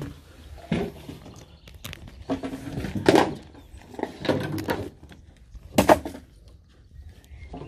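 Half a dozen scattered knocks and thumps of gear handled on a wooden jetty and a small rowboat as the boat is moored and unloaded, the sharpest one near the end.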